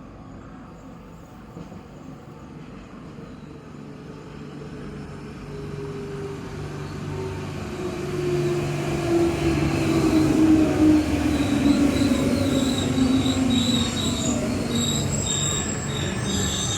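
White electric commuter train drawing near and growing steadily louder, with a low hum and a drone that falls in pitch. A high, wavering squeal of the wheels joins about ten seconds in.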